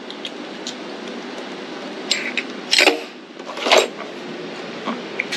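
Steel Allen wrenches clinking against one another as they are picked through in a metal tool-chest drawer. There are a few sharp clinks between about two and four seconds in, over steady background noise.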